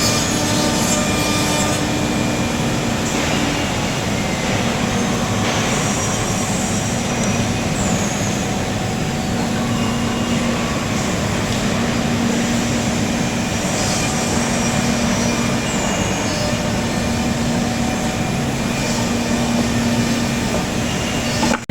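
10-head CNC mortising machine running, its spindles milling mortises in wood: a steady machine noise with a constant hum.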